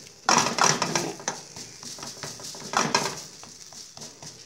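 Metal spoon scraping and tapping against a frying pan as it presses down a folded crepioca, with a faint sizzle of frying underneath. The loudest scrapes come just after the start and again near three seconds.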